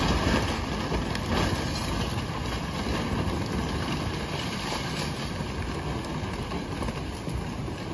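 Fast-moving floodwater of a swollen river rushing past in a loud, steady, unbroken noise that cuts in abruptly at the start.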